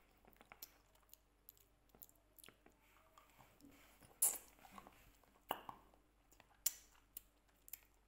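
Mouth sounds of sucking a hard lollipop: faint wet clicks and smacks, with three louder smacks about four, five and a half and nearly seven seconds in.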